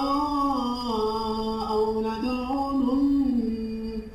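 A man's voice in melodic Quran recitation, drawing out the end of a verse in one long held note that wavers slightly up and down in pitch, then breaks off near the end.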